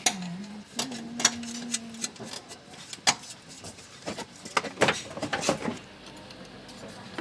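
Irregular sharp clinks and knocks of tools and metal parts being handled during car repair work, with a short low hum in the first two seconds.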